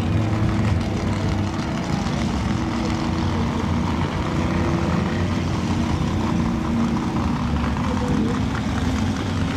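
An engine running steadily at an even speed, a constant low hum.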